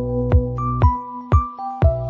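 Electronic background music with a steady beat of about two thumps a second under held synth notes and a bass line.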